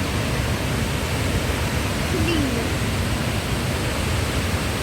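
Fast-flowing river water rushing steadily over rocks, a continuous even noise.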